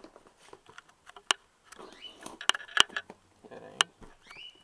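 Handling noise from a cardboard mailing box being turned over and its packing tape picked at with a small metal tool: rustling and scraping, with several sharp clicks and knocks.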